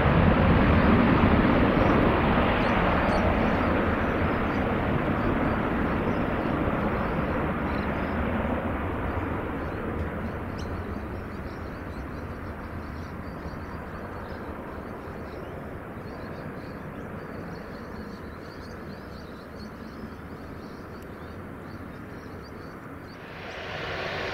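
Jet aircraft engines at takeoff power, loud at first and fading slowly and evenly as the plane climbs away. About a second before the end the sound switches abruptly to a different, steadier engine noise.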